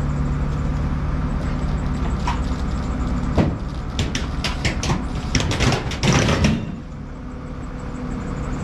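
A forklift engine running under load while the cut-through metal wing of a DC-6 creaks and cracks as it is levered up and down to break it free. Sharp snaps begin about three and a half seconds in and come thickest around six seconds, after which the engine eases off.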